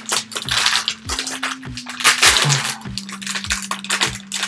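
Crinkling of a foil blind bag being handled and pulled open by hand, with dense crackles throughout, over background music with a steady beat.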